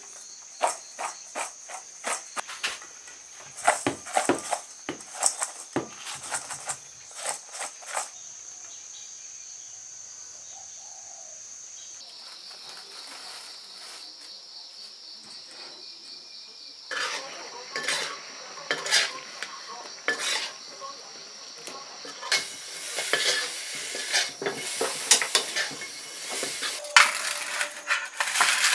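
Stainless steel bowl clinking and rattling as sugar-coated winter melon strips are tossed in it, over crickets chirring steadily in the background. After a quieter stretch, a fresh run of sharp knocks and scrapes starts about halfway in.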